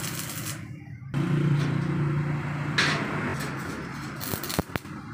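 Electric arc welding on a steel gate frame: the arc crackles and sizzles, stops about a second in, and strikes again near the end with a few sharp snaps. A low steady hum fills the gap between the two welds.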